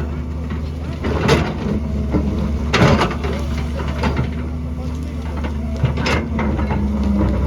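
Excavator's diesel engine running steadily, with three brief scraping crunches as the bucket works through rock and mud.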